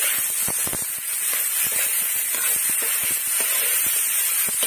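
Chopped vegetables sizzling in hot oil in a wok: a steady hiss with frequent small irregular crackles.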